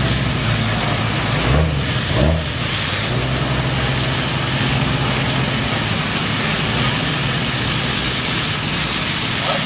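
A steady engine hum under the continuous hiss of high-pressure water spraying mud off mud truck tyres. Two short swells rise and fall about one and a half and two seconds in.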